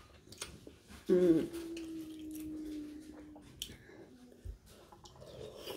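A person's voice: a short vocal sound about a second in that settles into one long steady hummed note lasting about two seconds and fading out. Faint clicks of shellfish shells being picked apart by hand run through it.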